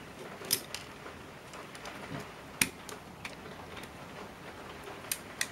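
A few scattered small sharp clicks and taps of plastic and metal parts as a partly disassembled Canon PowerShot S2 IS camera is handled and pried apart, the loudest about two and a half seconds in.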